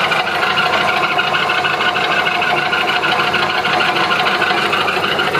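Dake 14-inch vertical band saw running with no blade fitted: its Baldor electric motor and three-speed belt drive turn the wheels with a steady, even hum and a fast fine rattle.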